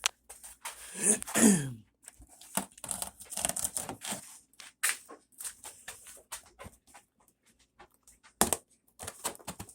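Cardboard box and packing tape being worked open by hand: irregular scratching, picking and clicking, with a louder scrape about a second in and a short sharp rip near the end.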